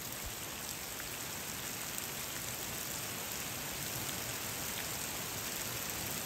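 Heavy thunderstorm rain falling in a steady hiss, with water coming off the edge of a cabin roof and a few faint drip ticks.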